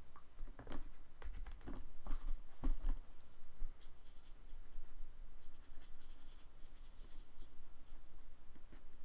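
Fine paintbrush with ink wash stroking and dabbing on paper, a soft scratchy sound, with a few light knocks and taps in the first three seconds.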